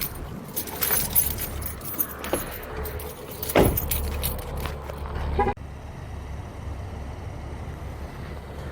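Keys jangling and handling noise as a person climbs out of a car, with one loud thump about three and a half seconds in. A low steady hum underneath cuts off suddenly about five and a half seconds in, leaving a quieter background.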